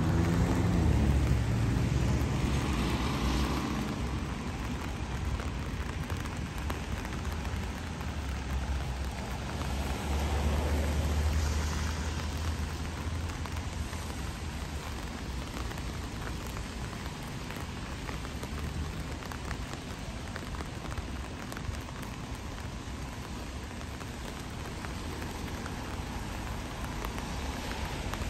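Steady rain falling on pavement and other hard surfaces. Two louder low rumbles rise and fade, one in the first few seconds and another around ten seconds in.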